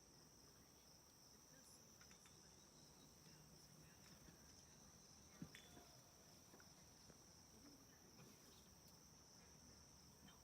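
Faint, steady, high-pitched chirring of crickets, with one faint click about five and a half seconds in.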